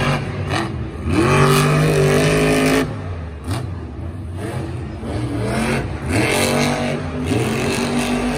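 Blue Thunder monster truck's supercharged V8 engine revving hard. It climbs in pitch about a second in and holds high, drops off near three seconds, then revs up again around six seconds.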